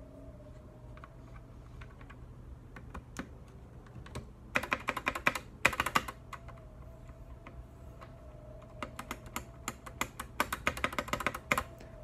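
Keys, space bar included, being typed on a partly assembled GK64X mechanical keyboard fitted with lubed Gateron Milky Yellow switches; the space bar is super clacky. Scattered clicks at first, then two quick flurries of typing, one around the middle and one near the end.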